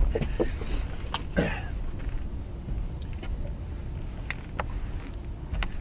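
Wind rumbling on the microphone, with a few light clicks and knocks scattered through it.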